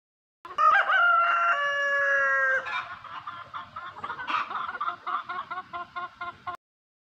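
A rooster crows once, one long call of about two seconds, then chickens cluck in a quick run of short notes.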